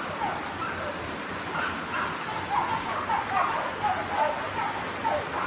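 Hunting hounds baying over and over, their short calls overlapping, above a steady rushing background noise.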